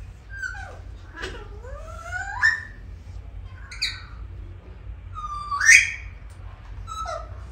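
Male Alexandrine parakeet calling to the female in a string of short squawks and chattering calls that slide up and down in pitch, the loudest a rising squawk near the end. This is courtship calling, which the owner hears as the bird saying "mitthu mitthu" to win over the female.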